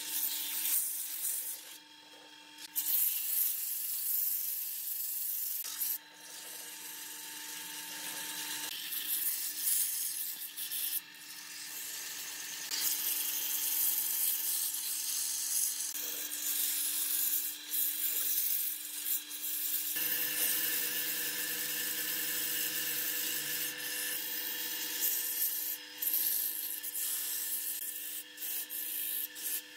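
Sandpaper rubbing against a wooden vase spinning on a wood lathe: a steady hissing rub over the steady hum of the lathe motor. The rubbing drops out briefly about two seconds in, and the hum changes pitch about twenty seconds in.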